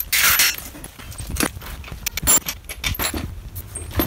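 Metal hand tools and motorcycle parts clinking and clattering as they are handled and put down. A brief rush of noise at the start is followed by a few separate sharp knocks.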